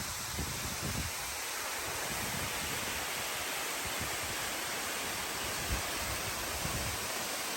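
Steady rushing of a tall waterfall, an even hiss of falling water that holds at one level throughout.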